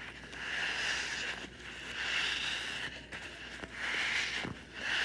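Shark gorilla squishy toy squeezed close to the microphone, giving a run of four or five soft, hissing squishes that swell and fade.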